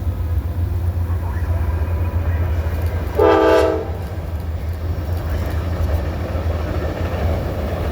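Passing train: a steady low locomotive rumble, with one short horn blast a little over three seconds in.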